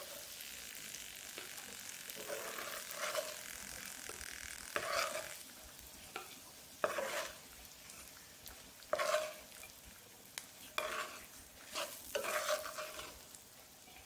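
Halved boiled eggs sizzling faintly in shallow chilli-spiced oil in a nonstick frying pan. A wooden spatula scrapes the pan every couple of seconds as the eggs are lifted out.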